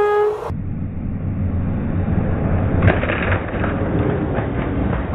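A train horn sounding, cut off about half a second in, then the low rumble of train wheels rolling along the rail and crushing Coca-Cola cans, with scattered cracks and clicks and one sharp crack about three seconds in.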